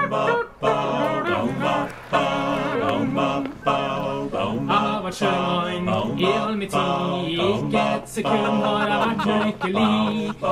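A vocal quartet singing a cappella, several voices together in short phrases.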